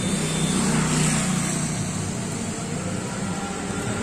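A motor vehicle's engine running steadily, a low hum under general noise.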